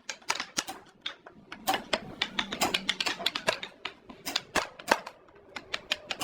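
Rapid, irregular sharp taps and clicks, several a second, with a brief lull near the end.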